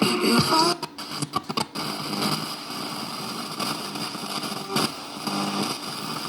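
FM radio of a budget all-in-one turntable unit being tuned between stations: steady static hiss, broken by short dropouts and brief snatches of broadcast near the start.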